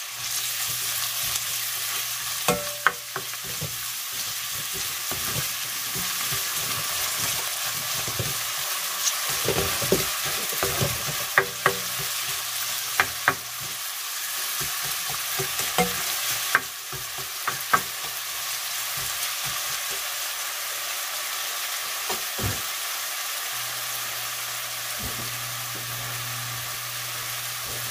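Chopped onion and garlic sizzling in hot oil in a stainless steel pot, stirred with a spatula that scrapes and clicks against the pot through the first two-thirds. After that the stirring eases and the steady sizzle goes on alone.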